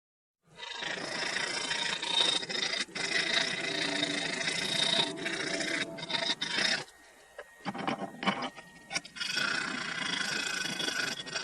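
Sanding a hand-carved crankbait body down to its rough shape: a steady scratchy rasping, broken by a short pause about seven seconds in.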